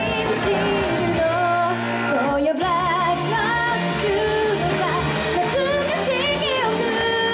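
A woman singing a pop song live into a handheld microphone over recorded backing music, heard through a small club's PA. Her held notes waver, and the music breaks off for a moment about two and a half seconds in before the next section starts.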